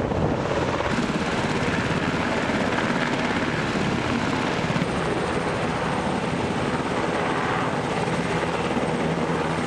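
HH-60M Black Hawk helicopters running at full power, a steady, rapid chop of the rotor blades over the rush of the twin turboshaft engines.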